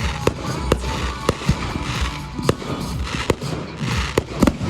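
Fireworks bursting: about a dozen sharp bangs at uneven intervals, with music playing underneath.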